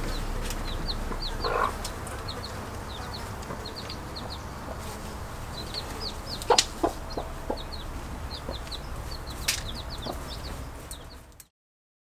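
Newly hatched chicks peeping in many short, high chirps, with a broody hen clucking now and then, most clearly about a second and a half in. A few sharp clicks come around the middle and later, and all sound cuts off shortly before the end.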